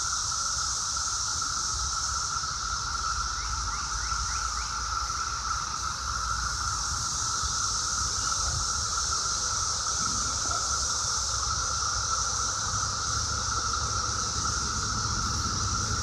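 A chorus of cicadas howling: a steady, unbroken drone with a higher hiss above it, holding at one level throughout.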